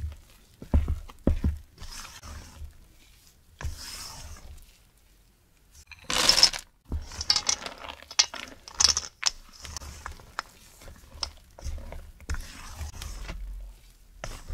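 Silicone spatula folding thick chocolate muffin batter in a stainless steel bowl, with wet scrapes and knocks against the metal. About six seconds in, a load of chocolate chips is tipped into the bowl in a short loud rattling rush. A run of sharp clicks follows as the chips are folded into the batter.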